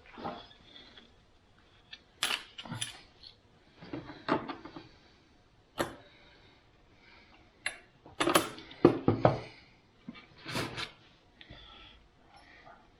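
Scattered clicks, clanks and rattles of sheet metal and hand tools being handled and set down, irregular with short pauses between them.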